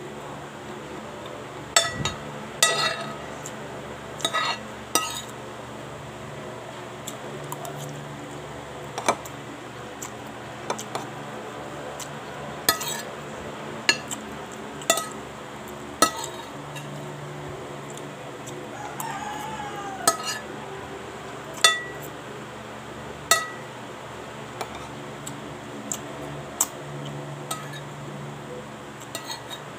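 Metal spoon and fork clinking and scraping against a ceramic plate of rice while eating, in sharp irregular clinks every second or so.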